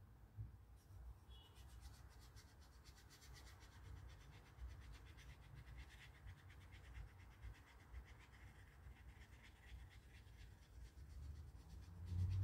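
Faint rubbing and scratching of a watercolour brush working paint on paper, starting about a second in.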